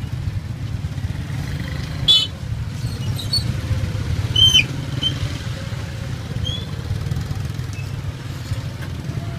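Motorbike engine running close by with a steady low rumble, and a short horn toot about two seconds in. A brief high squeak sliding down in pitch, the loudest sound, comes about four and a half seconds in.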